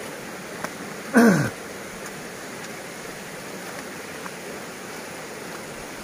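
Shallow stream running over rocks, a steady rush of water. About a second in, a brief loud vocal sound that falls in pitch.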